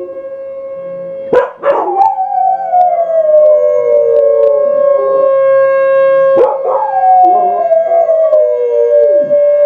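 Dog howling: two long howls, each starting high and sliding down in pitch, the first about a second in and the second past halfway. A steady high tone sounds underneath throughout.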